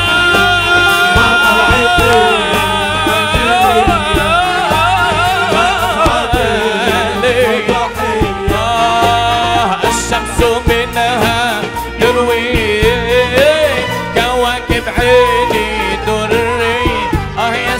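Live Aleppine tarab music: a male singer's ornamented, wavering vocal line gliding between notes over instrumental accompaniment.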